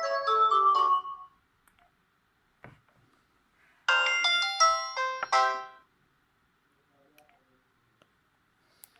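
Pirelli DP-L10 mobile phone's polyphonic ringtones from its Winbond W56940 40-voice sound chip: one melody stops about a second in, then after a click a short second ringtone plays for about two seconds. Faint clicks follow near the end.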